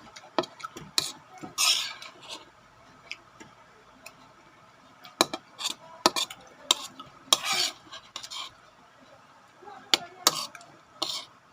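Spoon and utensils clinking and scraping against a plate while eating: scattered sharp clicks, with a few short scrapes.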